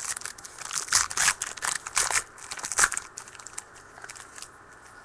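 Foil wrapper of a trading card pack crinkling and tearing as it is handled and ripped open, in dense crackly bursts that are loudest in the first three seconds and die away before the end.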